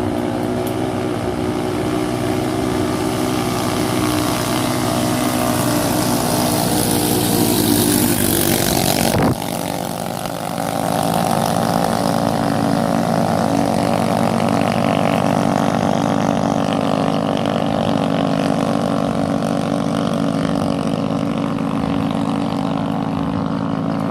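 Small racing boat engines (7 hp-and-up class) running hard and loud, building for about nine seconds. The sound breaks off abruptly and the engines run on steadily again.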